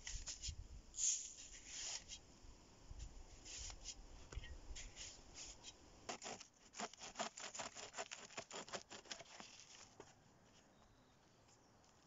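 A shovel scraping and striking into sandy soil, then a hand bow saw cutting through a dead branch with quick back-and-forth strokes that stop about ten seconds in.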